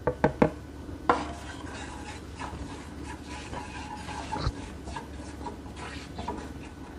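Ground spices in hot oil in a nonstick frying pan, stirred and scraped with a silicone spatula, with a faint steady sizzle. A few sharp taps come in the first second or so as the spices are knocked off the plate into the pan.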